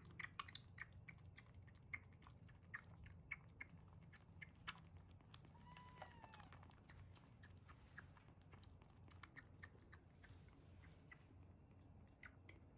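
Kitten suckling milk from a nursing bottle: faint, irregular wet clicks and smacks of its mouth on the nipple, with one short mew about six seconds in.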